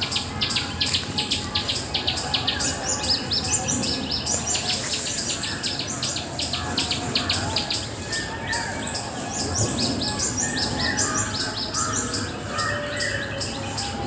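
Small birds chirping busily: many short, high chirps, several a second, overlapping throughout.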